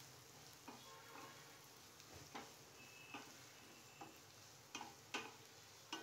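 Chopped onions frying faintly in oil in a non-stick kadhai while a wooden spatula stirs them, knocking and scraping against the pan about seven times, the sharpest strikes near the end.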